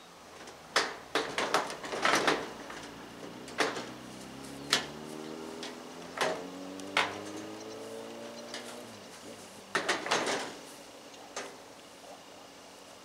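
Knocks and clunks of a clothes dryer's sheet-metal cabinet and a steel hand truck as the dryer is tilted and worked onto the hand truck on a pickup's tailgate, in a flurry early on, scattered single knocks, and another flurry near the end. Under the middle knocks a low drone slowly shifts in pitch and fades out.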